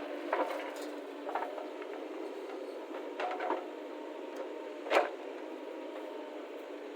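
Backhoe loader at work: its engine runs steadily while several knocks and thumps sound over it, the loudest about five seconds in.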